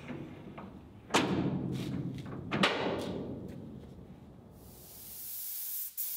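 Two loud metal clanks with a ringing tail, about one and two and a half seconds in, as the pivoting handle of a slack-adjuster latch is worked and its tabs clamp the steel tailgate door shut, with a few lighter clicks around them. From about four and a half seconds a rising hiss follows: a gravity-feed paint spray gun spraying.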